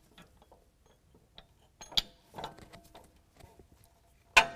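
Metal air-spring bracket and carriage bolts clinking and tapping as the U-shaped bracket is worked onto the bolts at a truck's rear axle, with a sharper click about halfway and one loud metallic clank near the end that rings briefly.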